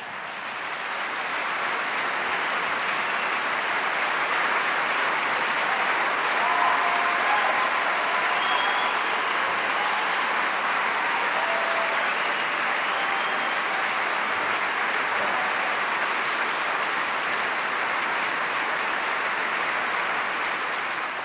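A large audience applauding steadily. The clapping swells over the first couple of seconds, then holds, with a few brief high calls near the middle.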